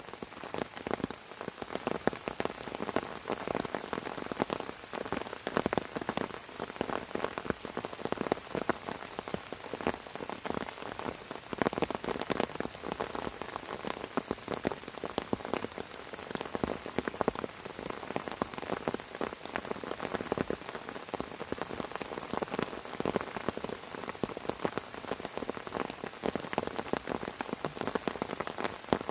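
Steady rain falling on fern fronds: a dense, even hiss of countless small drop taps, some landing louder than others.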